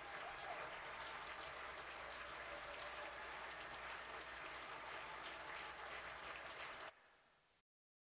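Audience applauding steadily, cut off abruptly about seven seconds in.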